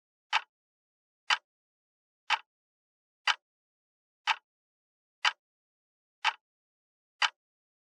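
Clock ticking steadily, one sharp tick a second, with silence between ticks.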